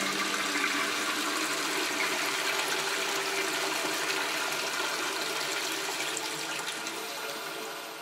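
Toilet flushing: a long rush of water that slowly fades, with a few faint held musical tones beneath it as the music dies away.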